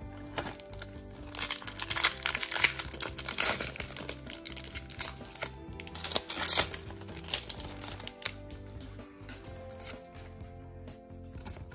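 Foil booster-pack wrapper crinkling and being torn open by hand, in loud crackly bursts that die down about eight seconds in, over soft background music.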